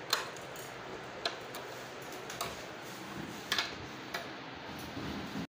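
A handful of light, irregularly spaced clicks and ticks over a steady low hiss, cutting off suddenly near the end.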